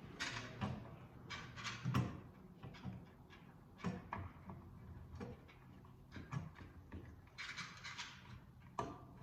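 Electrical cable and fish tape being pulled through a wall cavity: irregular scraping and rustling, with a few sharp knocks.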